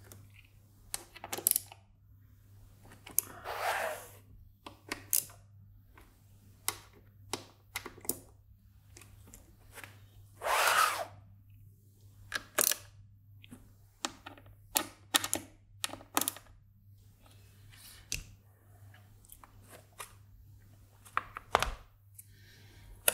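Hex screwdriver and hands working on stacked acrylic panel layers of an IMSAI 8080 replica kit: scattered small clicks and taps as socket screws get a last half or quarter turn to finger tight, with two longer handling sounds a few seconds in and about halfway through. A faint steady low hum runs underneath.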